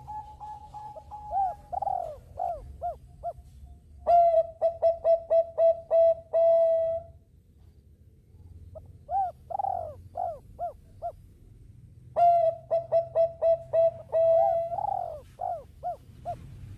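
Zebra doves cooing in repeated phrases of quick, rhythmic coo notes, some phrases ending on a longer held coo, with short pauses between phrases.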